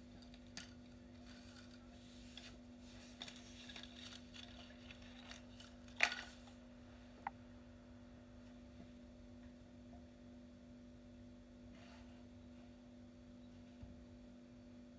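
Faint clicks and rustles of small objects being handled, over a steady low hum. There is one sharper click about six seconds in and a short ringing tick a second later.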